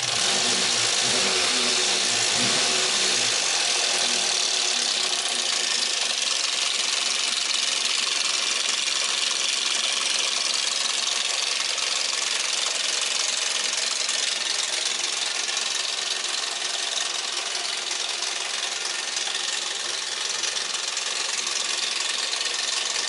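Toyota Yaris 1.0-litre three-cylinder petrol engine running with a loud, diesel-like clatter, which the owner puts down to too-large valve clearances and possibly a stretched timing chain. In the first few seconds the engine speed rises and falls as the throttle is worked by hand, then it settles to a steady idle.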